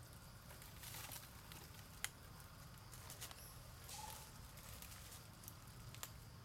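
Quiet forest ambience: faint scattered clicks and rustles over a low steady rumble, with one sharper click about two seconds in and a brief high chirp about four seconds in.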